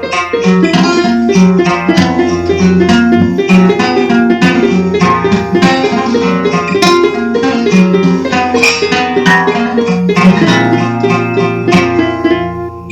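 Dark folk instrumental music: quick plucked-string notes over a sustained low bass note, which steps to a new pitch a little after two-thirds of the way through.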